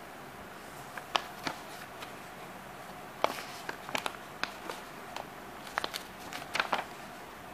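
A paper instruction leaflet being handled and its pages flipped: irregular sharp paper crackles and snaps, strongest about a second in and again around three seconds in.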